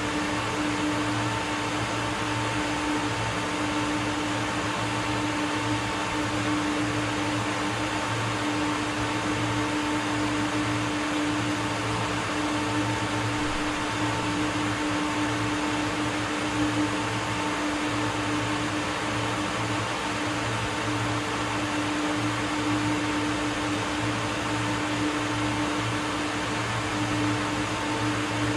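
Steady hum of running machinery and ventilation, with a constant low drone and two steady tones, unchanging throughout.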